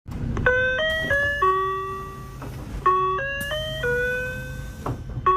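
Door chime of a 2007 Mitsubishi Fuso Aero Star natural-gas city bus: a clean electronic melody of two four-note phrases, each ending on a held note, with the melody starting again just before the end. A steady low hum runs underneath.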